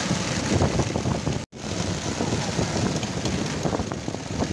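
Rain and wet-street traffic noise heard from a moving cycle rickshaw, with wind buffeting the phone's microphone. The sound cuts out for an instant about a second and a half in.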